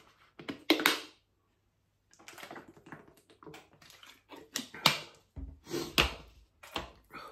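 A plastic water bottle is handled and drunk from: the plastic crackles and clicks as it is gripped, tipped up for a drink and set down again.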